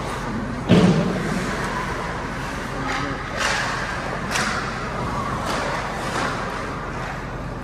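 Ice hockey play in a rink: one loud thump off the boards just under a second in, then a few short scrapes of skates on the ice over the arena's steady hum.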